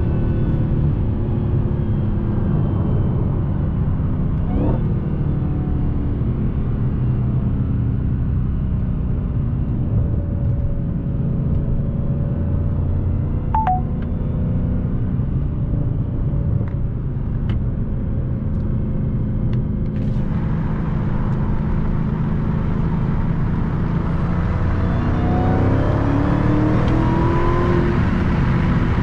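Supercharged 6.2-litre HEMI V8 of a 2020 Dodge Challenger Hellcat Widebody, heard from inside the cabin with road noise, running as a steady low rumble while cruising. About three-quarters of the way in it accelerates, its pitch rising over a few seconds.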